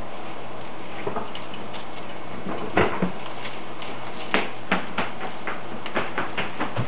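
Scattered light clicks and taps of hands and utensils working at a kitchen counter, irregular and a few a second at most, over a steady background hiss and hum.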